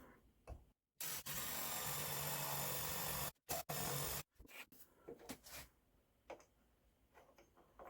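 Drill boring into wood with a 10 mm spade bit, running steadily for about two seconds, then a shorter second burst. A few light knocks follow.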